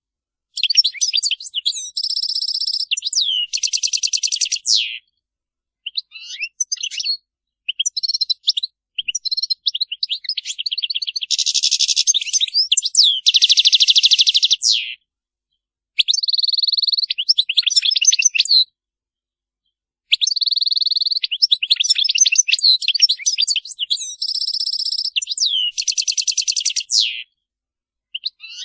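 European goldfinch song: bouts of rapid, high twittering phrases mixed with buzzy trills, broken by short pauses of a second or two.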